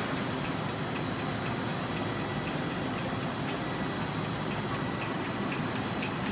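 Steady running noise of an automated packaging line: roller conveyors and palletizing robot arms working, with a faint regular ticking over it.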